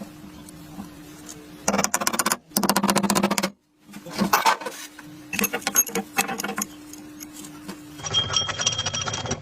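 Restored antique school bell ringing in several bursts, its clapper striking rapidly against the gong. A faint steady hum runs between bursts.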